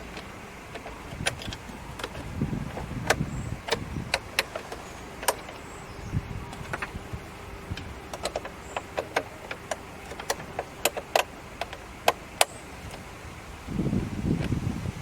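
Irregular sharp clicks and taps, a dozen or more, over a low rumble, with louder low rumbling bursts about two to three seconds in and again near the end.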